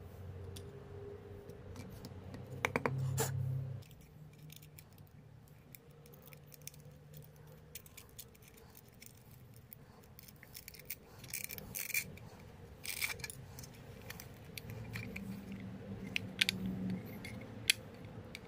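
Handling sounds as a plastic electronics box, braided cable and aluminium motor bracket are fitted together by hand: scattered clicks, taps and scrapes, with a louder spell of handling noise about three seconds in.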